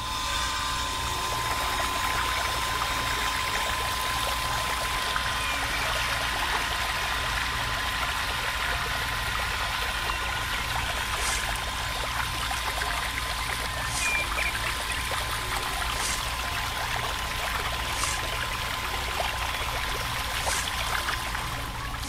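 Water pouring and splashing from a miniature DIY water pump's spout into a small plastic pond, over the steady high whine of the pump's small electric motor.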